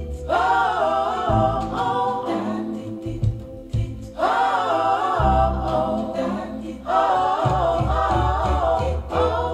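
Fyne Audio Vintage Classic VIII loudspeakers playing a vocal track, picked up by microphones in the room. There are three sung phrases with vibrato, starting near the beginning, about four seconds in and about seven seconds in, over deep bass notes.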